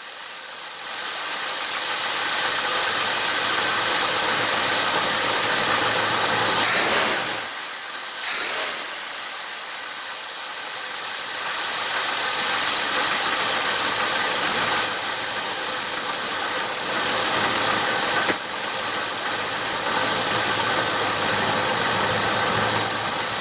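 AMC 401 V8 engine with an Edelbrock four-barrel carburetor running at idle, after water has been cleared from the carburetor's idle circuits. It grows louder about a second in, dips briefly near the middle with a couple of sharp clicks, then runs on steadily.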